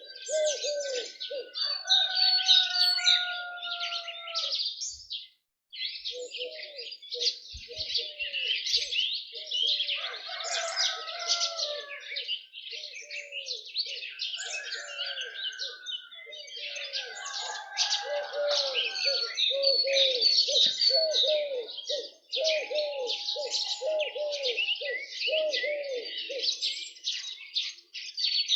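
Morning chorus of many small birds chirping and singing densely. Beneath it, a lower call repeats about twice a second.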